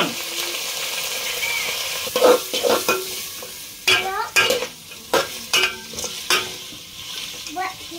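Chicken pieces sizzling as they fry in oil in an aluminium pot. From about two seconds in, a flat metal spatula stirs them, scraping and clattering against the pot several times.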